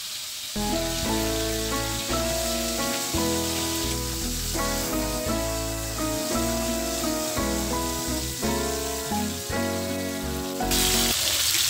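Background music with a simple melody and bass, laid over the sizzle of raw-mince kebabs shallow-frying in oil in a pan. The music stops about eleven seconds in, leaving only the sizzling.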